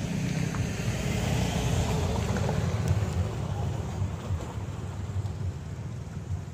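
Cars passing on a dirt road: engine and tyre noise that swells about two seconds in and then fades as they drive away.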